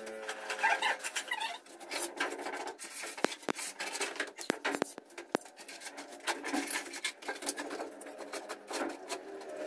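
Scraping, rubbing and scattered light knocks from a worker's footsteps and tool handling on sandy, brick-strewn ground.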